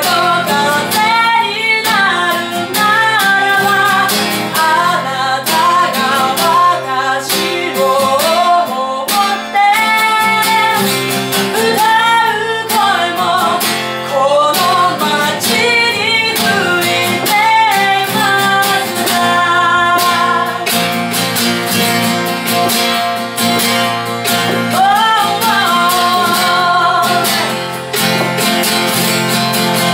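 A woman singing a song, accompanying herself by strumming an acoustic guitar.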